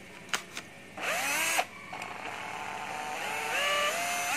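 Cordless drill-driver run on test: a couple of clicks, then its motor whines up briefly and stops, then runs again with its pitch rising in steps as it speeds up.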